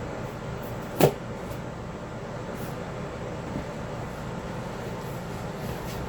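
A single sharp knock about a second in, over a steady background rumble.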